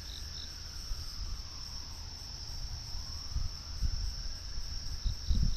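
Steady night chorus of crickets and other insects, with a distant outdoor tornado warning siren faintly rising and falling beneath it. Occasional low rumbling on the microphone gives the loudest moments, mostly in the second half.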